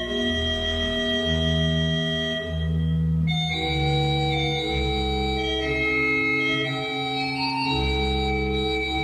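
Slow organ music of long sustained chords over a deep bass, the chords changing about once a second.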